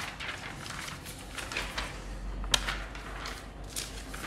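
Sheets of paper rustling and sliding as they are handled and shuffled on a tabletop, with one sharp tap about two and a half seconds in.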